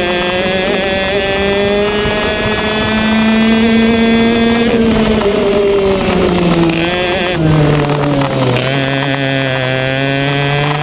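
Racing kart engine heard from on board at speed. Its pitch climbs for the first few seconds, drops away from about five to eight seconds in as the kart slows, then climbs again as it accelerates.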